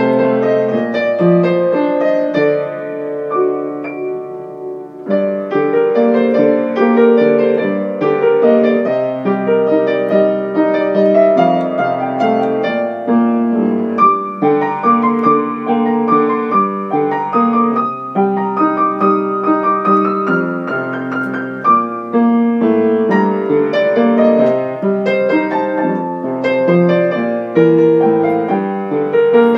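Solo piano music playing a flowing, gentle melody, softening briefly about four seconds in before carrying on.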